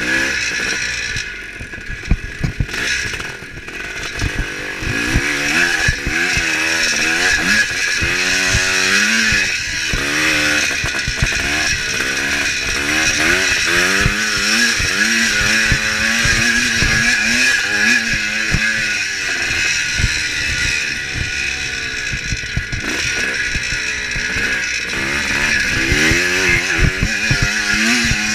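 1975 Kawasaki KX400's two-stroke single-cylinder engine under race riding, quieter for the first few seconds, then revving up and dropping back again and again as the throttle is worked, with a steadier pull in the middle.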